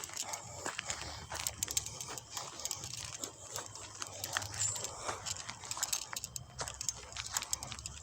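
Footsteps crunching through dry leaves and twigs on a trail, a scatter of irregular crackles and snaps, over a faint low rumble.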